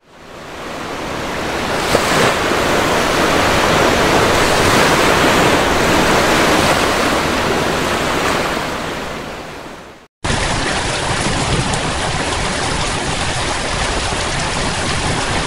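Ocean surf, a steady rushing wash of waves that fades in, swells and fades out about ten seconds in. After a sharp cut a second, steadier rushing noise follows, duller and with more low rumble.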